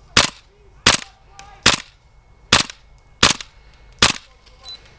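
Airsoft gun fired in single shots, six sharp cracks a little under a second apart.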